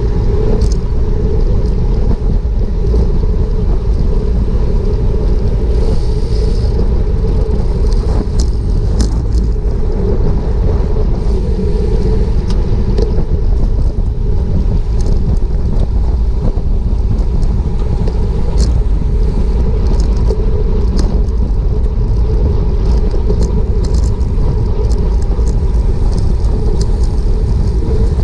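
Wind rushing over the microphone of a GoPro mounted on a road bike moving at about 22 to 31 mph: a loud, steady low rumble of wind and tyre noise, with faint scattered clicks.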